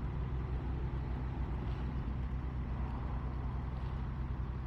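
International Harvester 1600 truck's engine running steadily as the truck drives slowly through a turn.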